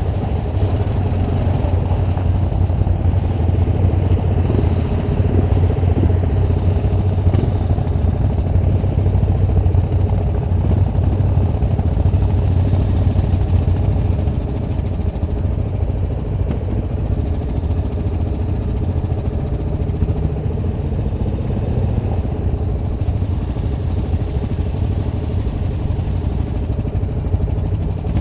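ATV (quad bike) engine running steadily, a little quieter from about halfway through.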